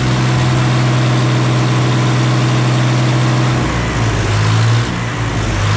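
Ford 3600 tractor's diesel engine running through its tall upright exhaust stack. The note is steady for about three and a half seconds, then wavers and briefly drops in level. Its fuel injection pump has just been reset to cure a 'phat-phat' popping problem.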